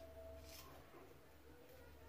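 Near silence: faint room tone with a soft click or two near the start.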